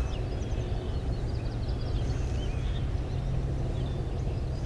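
Small birds chirping and twittering in many short notes over a steady low rumble.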